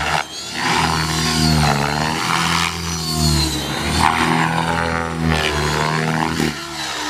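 Align T-Rex 600E electric RC helicopter's rotor and motor running, the buzz wavering up and down in pitch as the rotor speed and load change during stunt flying, with a brief dip just after the start.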